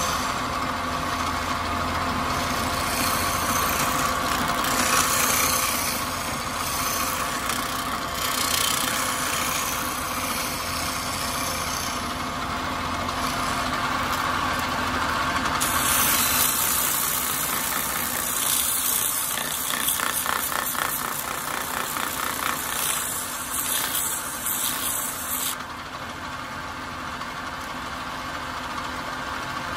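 Wood lathe motor running steadily with a hum while a turning gouge cuts shavings from the inside of a spinning wooden bowl; partway through the cutting gives way to sandpaper on a stick rubbing against the spinning wood.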